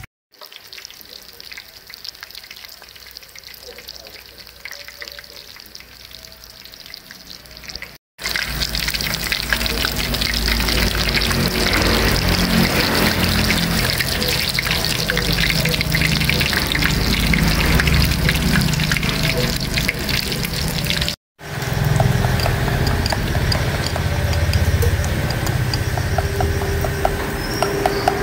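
Enoki mushrooms deep-frying in hot oil: a dense sizzle and crackle, quieter for the first eight seconds and then much louder, dropping out briefly twice.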